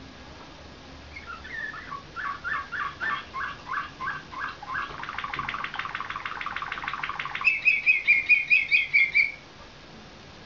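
A slavujar (nightingale-song) canary singing one phrase. It opens with slower repeated notes, runs into a fast trill about halfway through, then ends with a louder, higher series of quick repeated notes that stops abruptly near the end.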